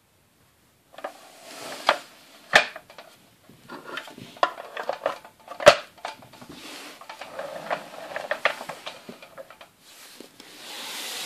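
Hard plastic parts of a Playmobil toy dump truck clicking and knocking as they are handled and the cab roof is fitted back on, with two sharp clicks, one about two and a half seconds in and one near the middle.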